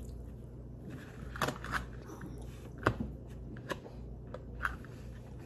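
Eating at a table with a fork and plate: about half a dozen sharp clicks and taps at irregular moments.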